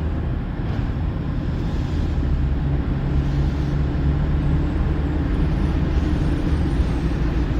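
Steady hum of a car's engine and road noise while driving.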